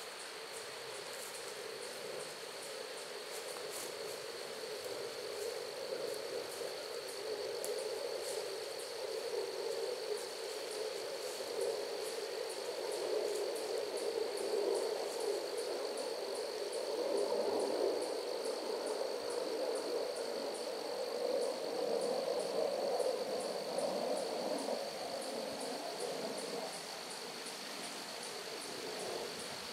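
Insects calling: a steady high drone with a quick, regular run of high clicking pulses. Under it, a louder, lower noise of unclear source swells through the middle and eases off near the end.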